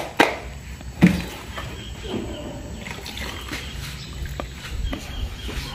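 Paint thinner poured from a plastic jerry can into a small measuring cup, a thin trickle of liquid. Two sharp clicks of the can and cup being handled come in the first second.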